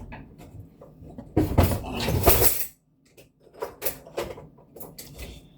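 Kitchen clatter of a bowl, pan and utensils knocking and scraping, loudest for about a second and a half in the middle, then cutting off abruptly before a few more light knocks.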